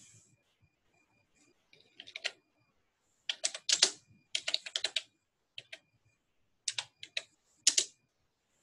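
Typing on a computer keyboard: short bursts of quick key clicks with pauses between them.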